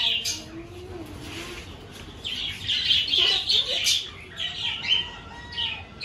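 Flock of budgerigars chirping and chattering, sparse for the first two seconds and then busy in quick clusters of high chirps.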